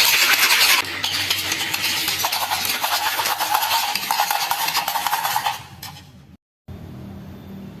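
Many marbles rolling and clattering along a toy marble run, a dense continuous rattle that drops somewhat in level about a second in and fades out near six seconds. After a brief cut to silence, a much quieter low hum follows.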